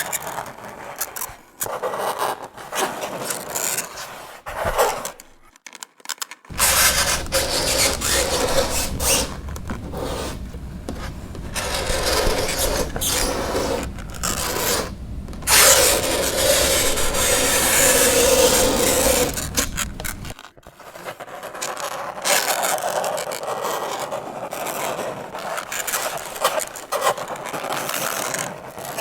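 Fingernails scraping across a chalkboard in a run of rasping strokes, with short breaks between passes and a drawn-out squeal past the middle.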